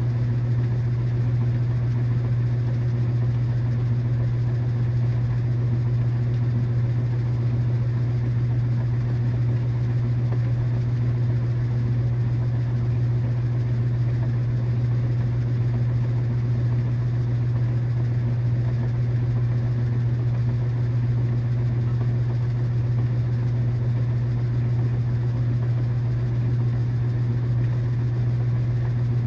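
KitchenAid washing machine running with a steady low hum.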